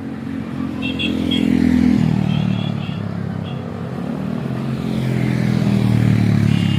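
Motor vehicle engines passing on a road, the engine sound swelling and easing twice, with a few brief high-pitched chirps in the first few seconds.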